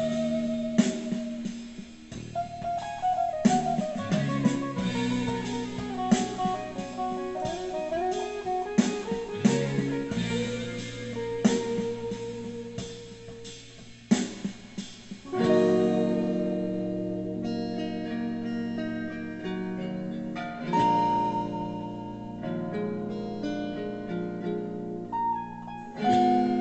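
Electric guitar improvising a lead over a backing track: quick single notes with slides, then from about 15 seconds in longer held notes and chords that ring out.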